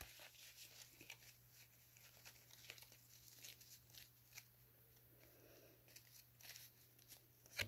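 Near silence, with faint scattered clicks and rustles from a stack of Pokémon trading cards being handled and squared up in the hands.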